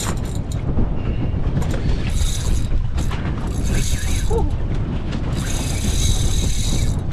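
Fishing reel whirring in three short spurts, the last one the longest, over a steady rumble of wind on the microphone.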